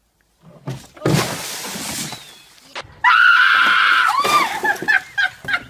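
A large load of water dumped from a bucket hits and splashes down about a second in. From about three seconds in, a young woman lets out a loud, held scream as ice water is poured over her, breaking into short shrieks.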